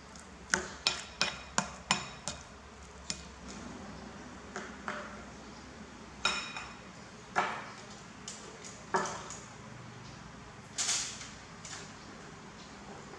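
Plastic spoon knocking against a ceramic bowl while stirring and scooping rice: a quick run of about five clinks in the first couple of seconds, then a few scattered knocks.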